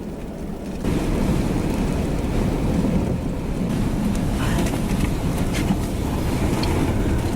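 Steady rumbling wind noise on the microphone, with a few faint clicks; it grows louder about a second in.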